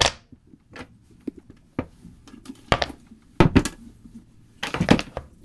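Paintbrushes and other painting tools dropped one after another onto a hard wooden surface: a series of separate knocks and clatters with short gaps between them, the loudest about three and a half seconds in.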